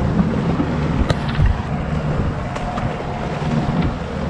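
Steady rush of wind and churning wake water from a boat under way, with a low rumble beneath. A few sharp clicks come through about a second in and again a little past the middle.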